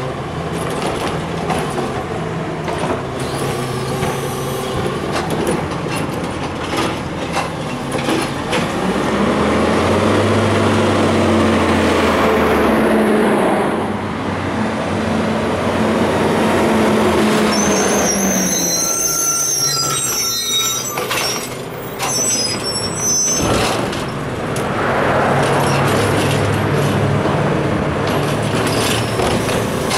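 Crane Carrier LET2 garbage truck with a Heil Rapid Rail body, its diesel engine running, rising in pitch as the truck pulls away and then dropping off. About two-thirds of the way through, its brakes squeal high-pitched as it comes to a stop, followed by a hiss of air.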